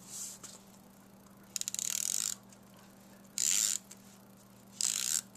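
Handheld adhesive tape runner drawn across cardstock in three short strokes, each a brief ratcheting rasp, the first beginning about a second and a half in with a quick run of clicks.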